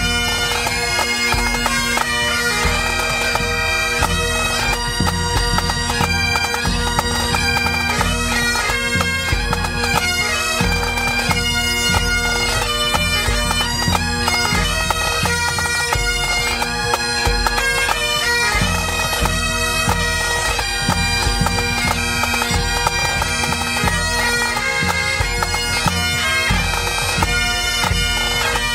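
Scottish pipe band playing a tune: Great Highland bagpipes with their steady drones under the chanter melody, and a bass drum beating time underneath.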